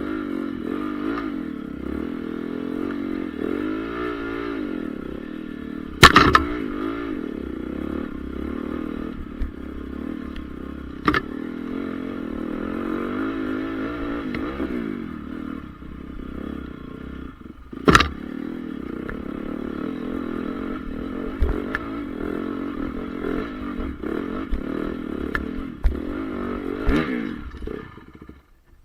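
Honda CRF450R's single-cylinder four-stroke motocross engine revving up and down repeatedly as the bike is ridden, broken by a few sharp loud knocks. The sound cuts off suddenly near the end.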